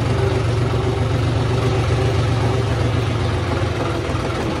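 John Deere tractor's diesel engine running steadily at low revs as the tractor rolls slowly, a low drone that eases off slightly near the end.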